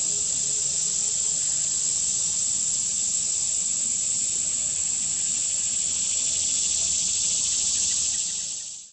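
A steady, high-pitched chorus of insects trilling in the surrounding grass and vegetation, unbroken until it cuts off abruptly at the end.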